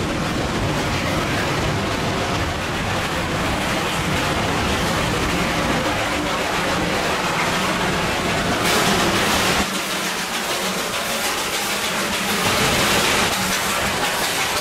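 Darjeeling Himalayan Railway train running, heard from inside the carriage: a steady rumble of wheels and track. About nine seconds in, the low rumble drops away for a few seconds and a brighter hiss comes up.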